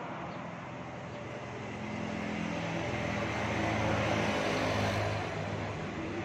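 A motor vehicle's engine passing by, growing louder to a peak about four to five seconds in, then fading.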